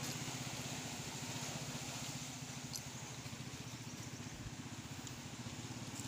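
An engine running steadily with a fast, even throb, over a steady hiss of surf and wind.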